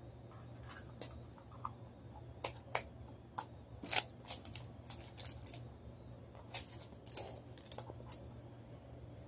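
Small plastic toys and packaging being handled: scattered, irregular light clicks and taps, a dozen or so, over a faint steady low hum.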